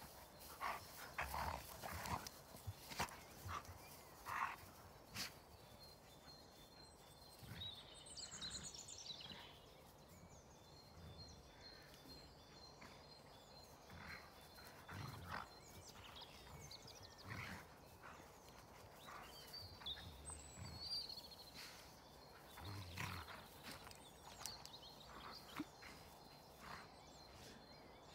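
Two big dogs play-fighting on grass, faint: scattered scuffles and brief dog vocal noises in bursts, with quiet stretches between.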